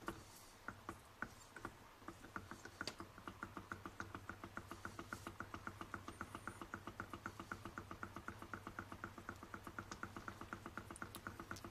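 Small Ringbom-type Stirling engine model running, giving a light mechanical ticking once per turn; a few scattered clicks at first, then the ticking settles into a fast, even rhythm after about two seconds as the engine picks up speed.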